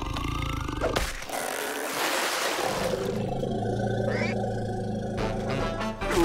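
Cartoon soundtrack: background music with a character's growling roar.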